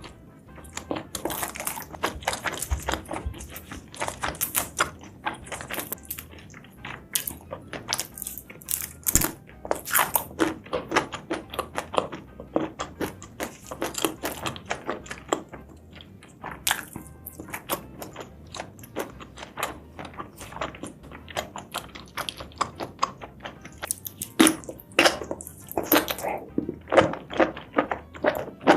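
Close-miked eating sounds of spicy seafood and mushrooms being chewed: a dense, irregular run of wet clicks and crunches.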